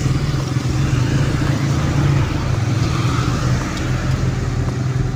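Honda CD200 Roadmaster's parallel-twin engine running steadily while the bike is ridden, with a noisy rush of road and wind sound above the engine note.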